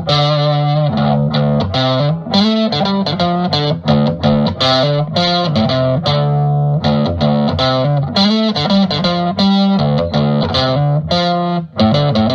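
Instrumental intro music led by a distorted electric guitar playing a busy riff.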